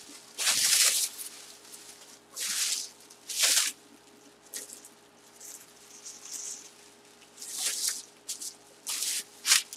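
Plastic bag and bubble wrap crinkling and rustling as it is handled and pulled off a box, in a handful of short separate bursts.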